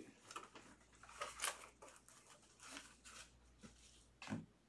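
Faint handling sounds as a small black card box is opened and a clear plastic card case is lifted out: a few soft scrapes and rustles, and a light knock near the end, the loudest of them.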